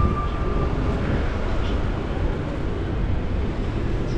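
Steady low rumble of wind buffeting the microphone while riding a bicycle, over faint city street noise.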